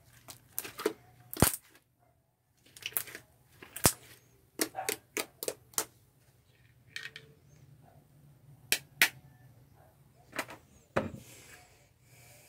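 Soft white slime, mixed with makeup, being kneaded and pressed by hand, giving short sharp clicks at irregular intervals as it is squeezed.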